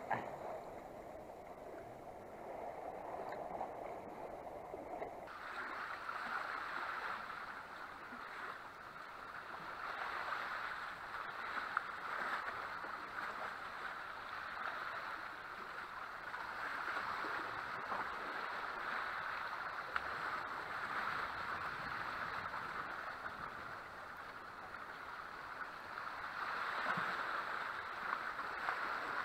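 Sea water sloshing and splashing against the concrete wave-breaking blocks and rocks of a breakwater, a steady rushing that grows fuller about five seconds in.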